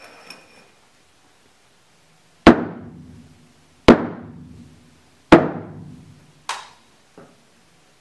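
Three heavy bangs about a second and a half apart, each sudden and very loud and ringing on for about a second, followed by a weaker knock and a faint click near the end.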